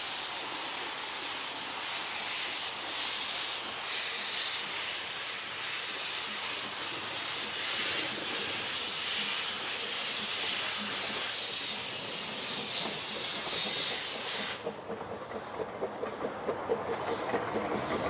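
Narrow gauge steam locomotive coming in slowly with a steady hiss of escaping steam. About fourteen and a half seconds in the hiss stops, and a quick rhythmic clatter of wheels and running gear follows as the engine rolls past close by.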